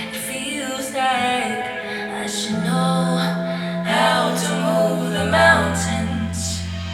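A no-copyright pop song played back through a Zebronics Roxor 100 W party speaker: sung vocal phrases with a wavering pitch over a held bass note, and a deeper bass note comes in about five seconds in.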